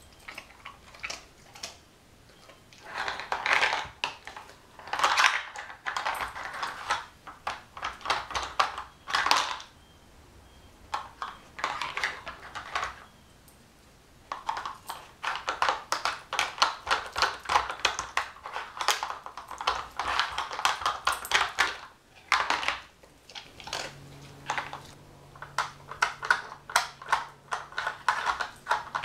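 Hard plastic pieces of a dog puzzle toy clicking, clattering and scraping against the plastic board in quick runs as a dog noses and lifts the cones off to find treats, with short pauses in between.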